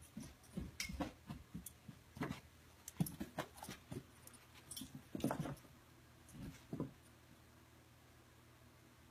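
A Great Weimar puppy's paws thumping and scuffing on carpet as it runs and pounces, an irregular scatter of knocks that stops about seven seconds in.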